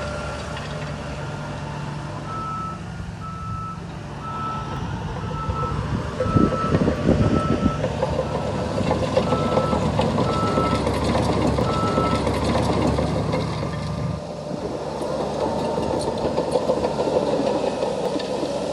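A heavy construction vehicle's reversing alarm beeping about once a second, about ten beeps, over its diesel engine running; the engine grows louder with a clattering sound about a third of the way in, and the beeping stops a few seconds before the end.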